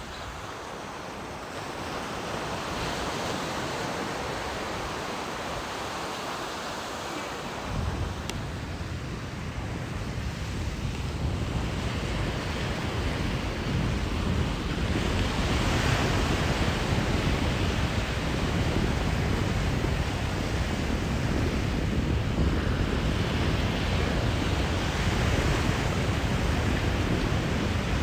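Ocean surf washing in and out in slow swells. A low rumble of wind on the microphone sets in about eight seconds in, and the sound grows louder after it.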